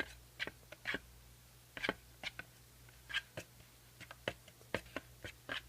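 A spoon stirring glue and food colouring in a mixing bowl: irregular clicks and scrapes as the spoon knocks against the bowl, about two or three a second.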